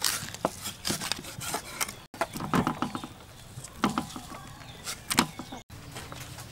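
A cleaver chopping raw fish into steaks on a wooden chopping board: a run of sharp, irregular knocks.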